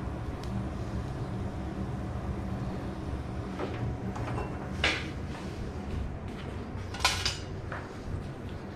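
Knocks and clanks of a small pan and a wooden spatula against the gas stove's metal grate as the pan is handled and lifted, over a steady low hum. A single sharp knock comes about five seconds in, and the loudest short clatter about seven seconds in.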